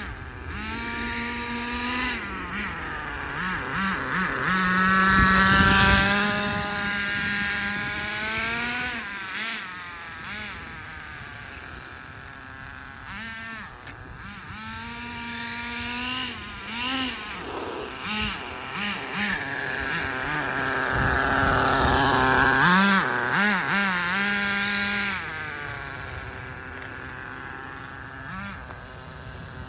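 Nitro two-stroke glow engine of a 1/10 scale RC monster truck running as the truck is driven, its pitch rising and falling with the throttle. It is loudest twice, once about five seconds in and again around twenty-two seconds.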